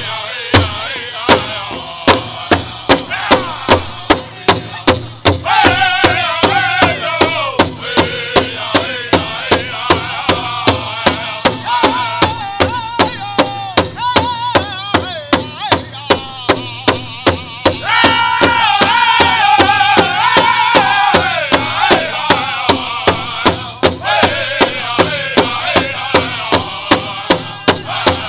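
Powwow drum group playing a Southern-style song: a big drum struck in unison in a steady beat of about two strokes a second, with the singers' high-pitched voices over it, rising in strength about five seconds in and again past the middle.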